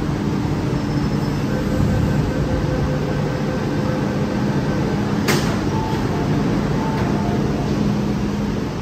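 Steady onboard hum of an MTR M-Train metro car, with a sharp click about five seconds in followed by a few short faint tones.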